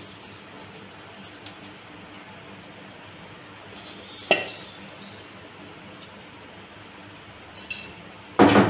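Kitchenware knocking: a single sharp clink about four seconds in and a louder clatter near the end, over a low steady hiss.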